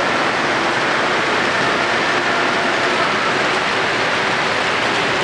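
Model train running on the layout's track: a steady rolling whir with no breaks.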